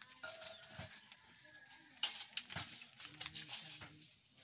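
Quiet farmyard background: faint chicken calls and low distant voices, with a few sharp clicks about two seconds in.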